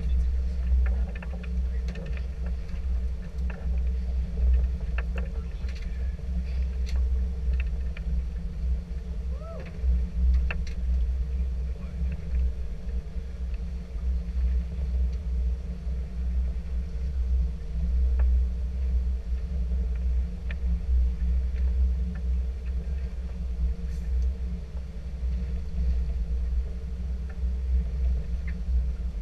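Steady low rumble of a sport-fishing boat's engine running, with a faint steady hum above it.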